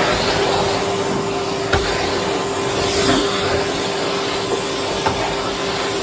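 Cylinder vacuum cleaner running steadily while its wand is worked over carpeted stairs: a constant motor whine over the rush of suction, with a couple of faint knocks.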